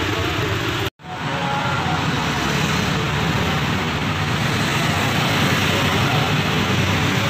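Steady road traffic noise with engines running. The sound drops out completely for an instant about a second in.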